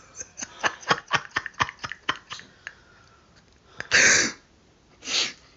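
A quick run of light clicks, then two short coughs about a second apart, the first the louder.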